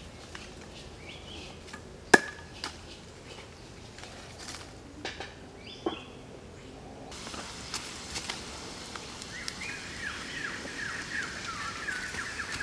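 A hatchet chopping a stick on a wooden chopping block: a few sharp chops in the first half, the loudest about two seconds in, over faint chirping. About halfway the background changes to a steadier outdoor hiss, with a run of quick high chirps near the end.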